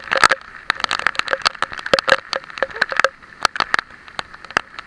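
Heavy typhoon rain hitting the camera up close: a quick, irregular run of sharp taps and crackles.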